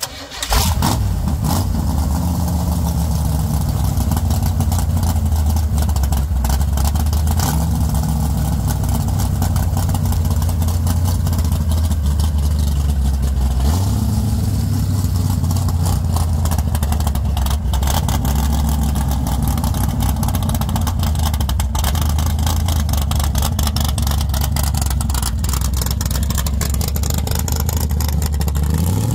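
Fuel-injected V8 of a 1940 Ford gasser firing up about half a second in, then running loud at idle with a few blips of the throttle. Near the end the revs rise as the car pulls away.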